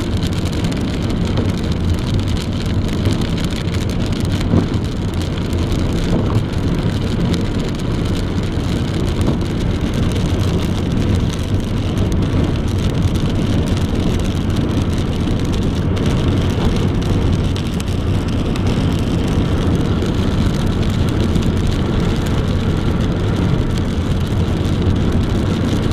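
A car driving at steady speed: continuous engine and tyre-on-road noise, with a few faint ticks.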